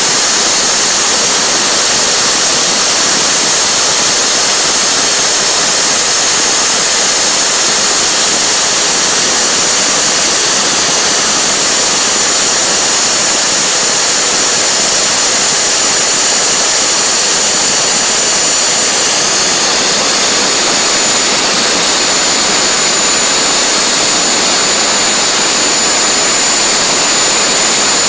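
Router spindle of a home-built CNC router running steadily under load, cutting plastic gear blanks, with a steady high whine over a loud rush of noise.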